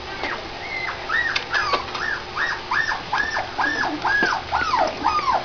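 A puppy whining in a steady run of short, high cries, about three a second, starting about a second in.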